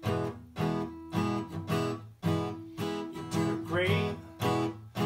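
Acoustic guitar strummed in a steady rhythm, about two strums a second.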